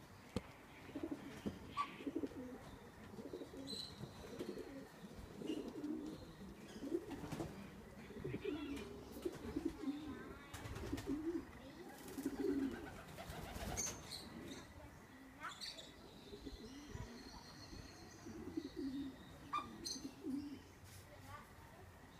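Pigeons cooing over and over in short, low calls, with a few brief higher chirps mixed in.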